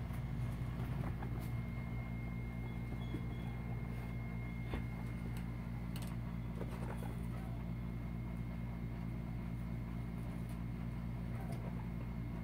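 Steady low hum with a thin, faint high whine above it, broken by a few light clicks and rustles.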